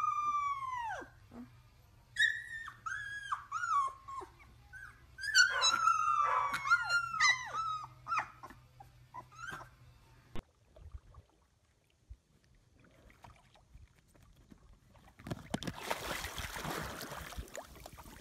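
Very young puppies howling and whimpering: a run of high, wavering calls, each falling in pitch, for about ten seconds. A few seconds of quiet follow, then a rush of noise near the end.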